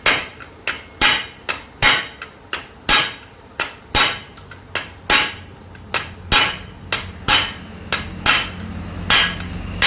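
Hammer striking metal in a steady run of blows, about three a second, some harder and some lighter, each with a short ring.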